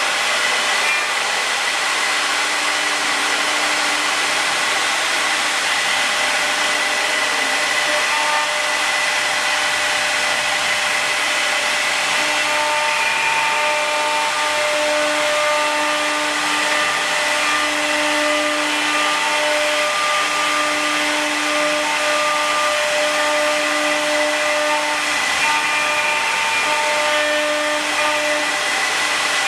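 The 3 kW air-cooled spindles of a four-spindle 4-axis rotary CNC router whining steadily while rough-engraving, over a constant cutting hiss. One of the whine's tones drops in and out every second or two as the cutters engage.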